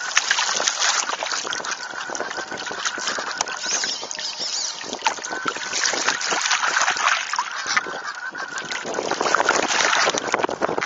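Water splashing and rushing against the hull of a radio-controlled Mini40 hydrofoil trimaran under sail, with spray breaking close to the onboard microphone.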